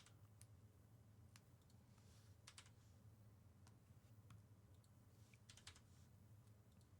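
Near silence with faint, scattered clicks of typing on a computer keyboard, in small irregular clusters.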